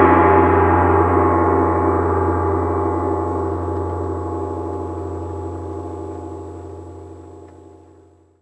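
A large hanging gong ringing out after a single strike, its deep hum outlasting the higher tones as the sound slowly dies away and fades out near the end.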